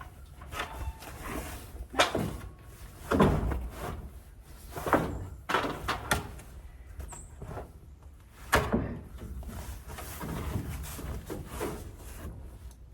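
Wooden knocks and thuds, about half a dozen at irregular intervals, the sharpest about two seconds in and past eight seconds, as a board of barn siding is handled and set against the wall.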